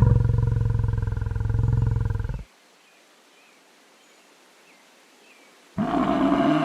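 A buffalo gives long, low calls. The first call stops abruptly about two and a half seconds in, and a second call begins near the end.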